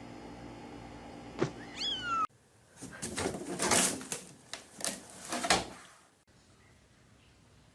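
A cat gives a short meow that falls in pitch. After a sudden cut come about five loud, harsh, noisy sounds over some three seconds.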